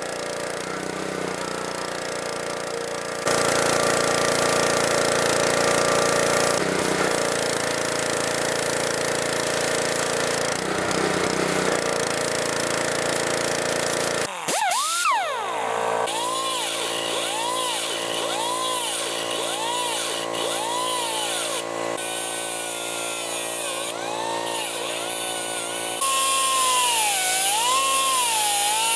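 Electric power tool cutting steel on a cart frame, running steadily in several stretches with abrupt jumps in level and pitch. In the second half its pitch dips and recovers over and over as the cut loads the motor.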